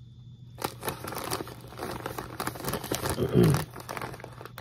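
Plastic snack bag of pork rinds crinkling as it is handled and turned over, with a brief low hum of a man's voice about three seconds in.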